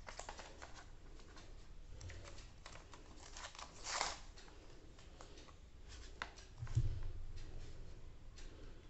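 Handling noises from a laptop and its plastic packaging: scattered light clicks and taps, a brief rustle about four seconds in, and a soft low bump a little before seven seconds.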